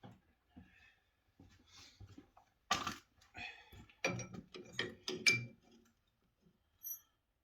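Small metal tools and parts clinking and knocking as they are picked up and set down, with one sharp knock near the start and a quick run of clinks in the middle.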